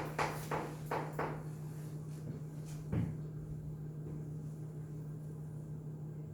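A quick run of soft knocks, about three a second, stopping about a second and a half in, then a single thump about three seconds in, over a steady low electrical hum.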